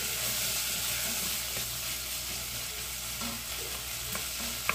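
Diced onion and garlic seasoning frying in lard in a stainless steel pot, with a steady sizzle as the pot's contents are stirred.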